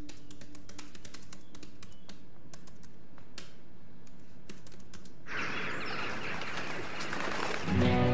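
Laptop keyboard being typed on: quick, irregular key clicks for about five seconds. The typing then gives way to a steady rushing hiss, and music comes in near the end.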